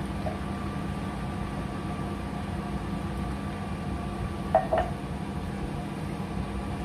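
A steady mechanical hum of a kitchen appliance, with two quick ringing clinks of kitchenware about four and a half seconds in.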